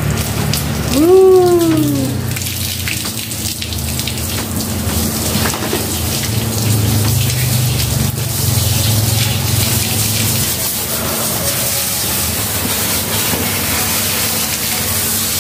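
Water from a garden hose spraying steadily onto a large dog's thick wet coat. About a second in, a dog gives a single drawn-out call that rises and then falls in pitch.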